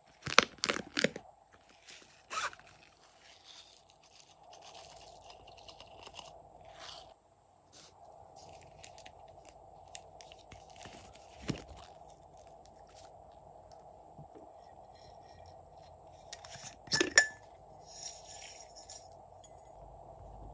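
Hard plastic toy cases clicking and snapping as they are opened, with small tinkling rattles of sequins and glitter pieces dropping into slime. The loudest clicks come in a quick cluster in the first second and again about two-thirds of the way through, over a faint steady hum.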